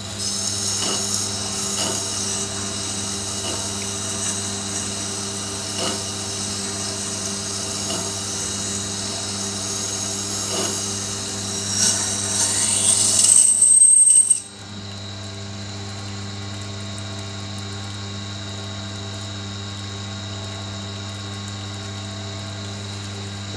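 Steel blade of a Buck folding knife ground against the turning wet stone of a Tormek T7 sharpener: a steady rasping scrape that gets louder near the end and stops sharply about fourteen seconds in as the blade is lifted off. After that only the grinder's steady motor hum is left.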